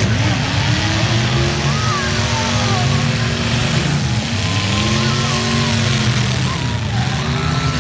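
Demolition derby cars' engines running together in a steady low drone, with an engine revving up and easing off twice: once in the first three seconds and again from about four to six and a half seconds in.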